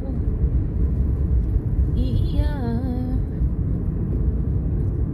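Steady low rumble of a car driving on a wet road, heard from inside the cabin. A short wavering voice comes in about two seconds in.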